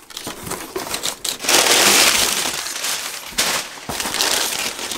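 Crumpled brown kraft packing paper rustling and crackling as it is pulled out of a cardboard box, loudest about a second and a half in. Near the end, the plastic bag around the packaged pillow crinkles as it is gripped.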